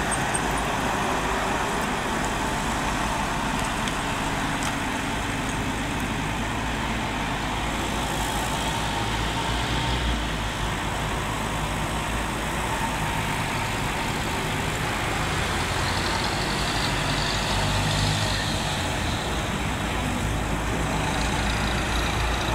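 Bobcat 331 compact excavator's diesel engine running steadily as it digs, heard from a distance and mixed with passing road traffic.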